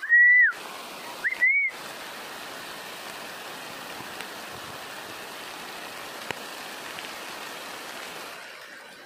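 Two loud whistled notes, each about half a second long, over a steady hiss. The first rises, holds and falls away; the second is a quick rise and then a held note. A single short click comes about six seconds in.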